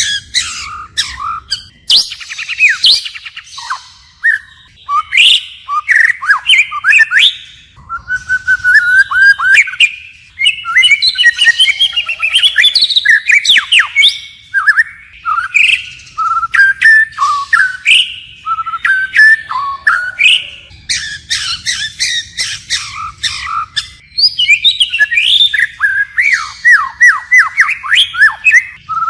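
White-rumped shama singing a long, unbroken run of varied whistled phrases that switch constantly, with quick trills, falling slurs and sharp clicks among the notes.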